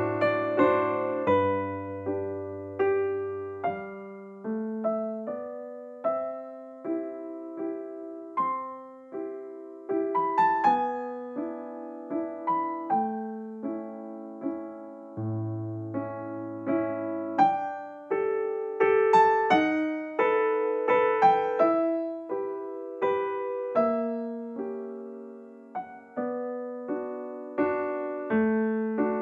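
Background music: a gentle piano melody of single struck notes that ring and fade, over a few low held bass notes.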